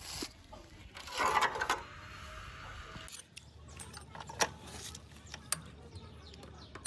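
Metal parts and hand tools clinking and clattering, with scattered sharp clicks and knocks and a stretch of rushing noise about a second in that lasts about two seconds.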